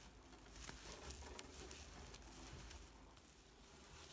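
Near silence: faint rustling and a few light ticks of paper yarn being worked with a metal crochet hook in single crochet.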